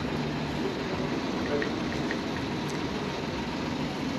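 Steady street background: a constant hum and hiss of traffic with no single event standing out.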